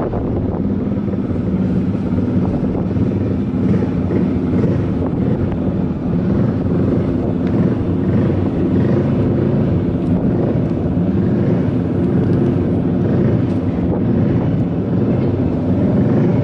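A motorcycle engine running steadily at an even speed, with wind buffeting the microphone.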